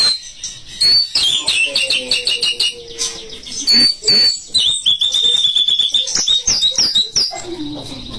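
White-rumped shama (murai batu) singing continuously: fast runs of high whistled notes, many sliding downward, and a held rapid trill in the middle, with fainter lower notes beneath.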